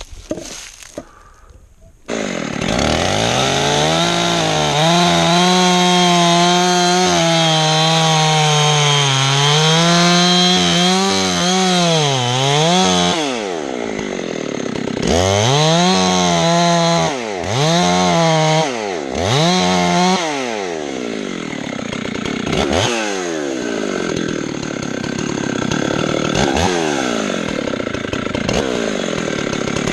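Two-stroke chainsaw starting up about two seconds in, then revving hard. The engine note holds high with several dips, gives three short throttle blips, then runs on steadily.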